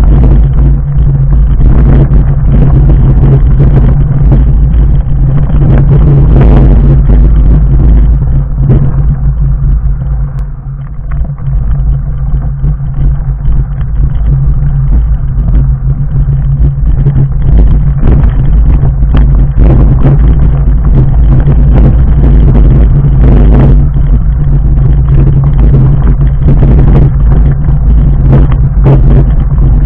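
Fat bike on 4-inch Schwalbe Jumbo Jim tyres rolling down a loose, rocky gravel track: a loud steady rumble with frequent knocks and clatter as it jolts over stones. The rumble eases briefly about ten seconds in.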